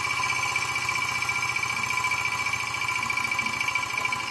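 Small hot-air Stirling engine running steadily, its flywheel turning a belt-driven generator, with a steady high ringing whine over a fast, even pulsing of its piston strokes.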